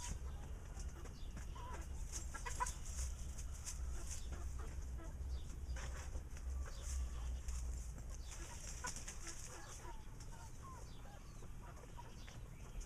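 Chickens clucking in short, scattered calls over a steady low rumble.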